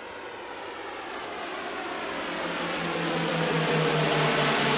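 Propeller aircraft flying in on approach to land, its engine drone growing steadily louder as it nears, the pitch sinking slightly toward the end.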